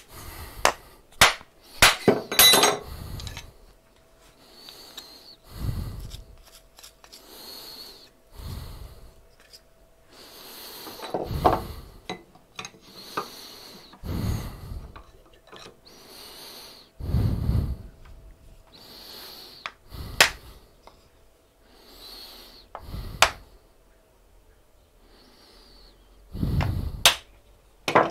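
Workshop handling noise: several sharp knocks and clatter of tools and wood in the first few seconds, then short puffs of breath or rustle on the microphone about every three seconds.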